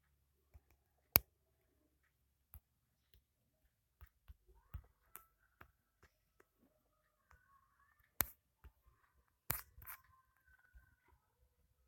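Scattered sharp clicks over a quiet background, a few seconds apart. The loudest comes about a second in, and a close pair falls near the end.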